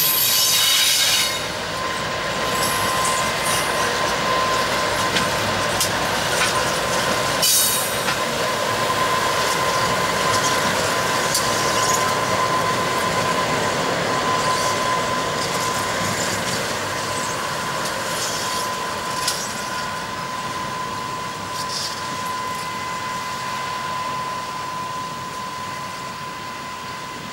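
Aurizon diesel-electric freight locomotives running along the track, with engine noise and a steady high whine. There are short hissing rushes at the start and again about seven seconds in, and the sound slowly fades over the last third as the locomotives draw away.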